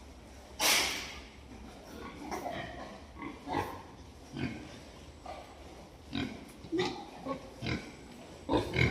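Pigs grunting in short, separate calls every half second to a second, with one louder, harsher call about half a second in.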